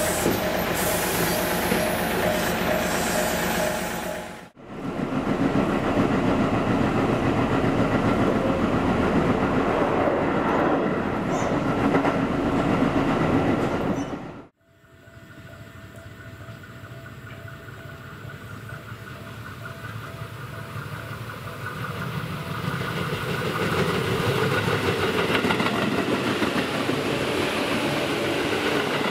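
Tobu Railway 8000 series electric trains running, in three cuts. First a train passes a level crossing with the crossing bell ringing. About four seconds in comes the steady running rumble heard inside the cab. From about halfway, a train approaches along the track with wheels clacking, growing louder.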